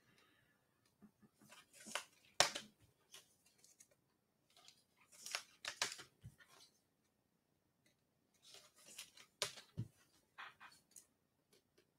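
Plastic wrap and cardboard of a trading-card blaster box being torn and handled to open it: three spells of crinkling rustle with sharp snaps, the loudest about two seconds in.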